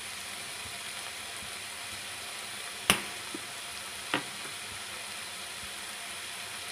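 Minced chicken and onion sizzling steadily in a frying pan. A sharp click about three seconds in and a lighter one about a second later.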